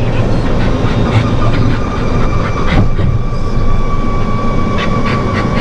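Golf cart driving along: a steady running rumble of motor and tyres with a thin, steady whine above it, and a single knock about three seconds in.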